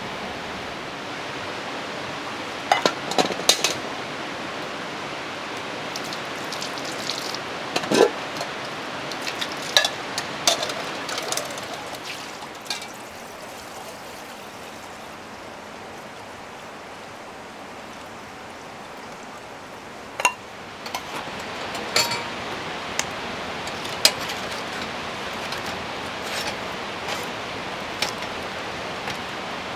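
Steady hiss of rain, with scattered light clinks and knocks of camp cookware and utensils being handled.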